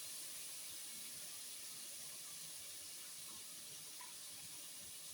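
Chicken sizzling in a pot on the stove with broth and vinegar just added: a faint, steady hiss.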